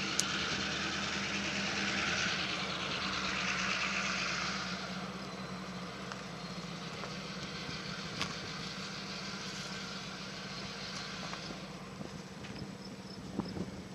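An engine running steadily at idle, a low hum, with a hiss over it that eases off about five seconds in.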